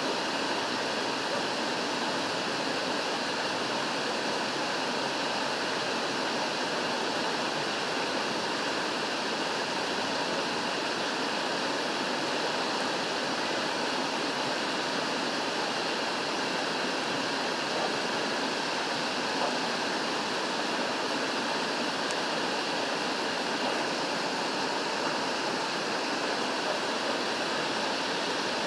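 Rushing water, a steady even rush that does not change.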